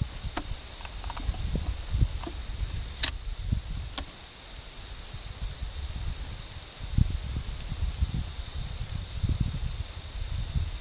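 Insects chirping in a steady, evenly pulsing high buzz, with low rumbles on the microphone and a single sharp click about three seconds in.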